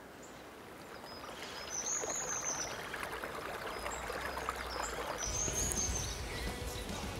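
Small shallow stream running over stones, a steady trickling rush that grows louder about a second and a half in. A bird gives a short high call twice over it.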